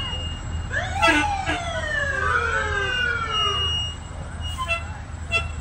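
Emergency vehicle siren sweeping up sharply about a second in, then winding slowly down over the next few seconds, over a steady low engine rumble. Two short toots come near the end.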